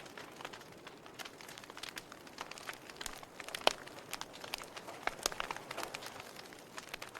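Wood fire burning in a fireplace: burning logs crackling with irregular sharp pops over a soft steady hiss, one louder pop about halfway through.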